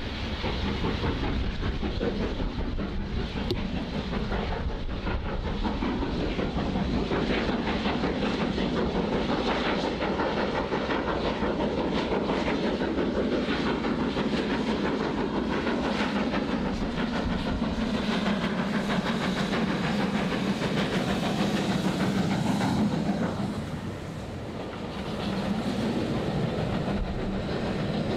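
Steam locomotive working hard as it approaches and passes with a train of coaches, its exhaust beating over a steady rumble. After a short dip about two-thirds through, the coaches' wheels rumble and clatter over the rail joints.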